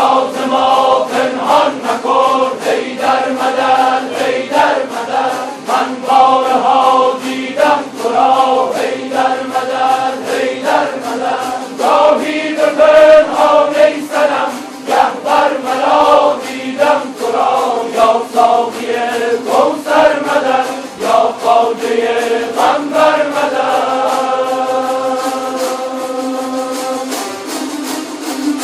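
Many Kurdish tanburs, long-necked lutes, strummed together in a quick, steady rhythm while a group of men chant in unison over them. Near the end the voices hold a long, steady note.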